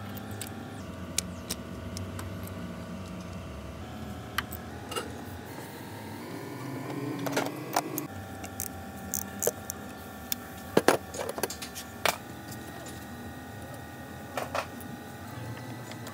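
Sharp metallic clicks and clinks of hand tools, bolts and the pump's cover being handled while the cover is taken off a diesel high-pressure fuel pump, the loudest cluster about eleven seconds in, over a steady mechanical hum with several tones.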